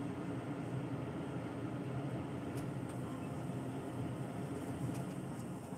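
Steady fan hum with an even hiss.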